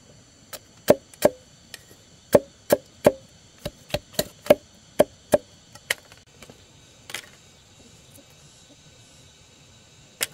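Chopping: a quick run of about fourteen sharp chops, two to three a second, for some five seconds, then two single chops a little later and at the end.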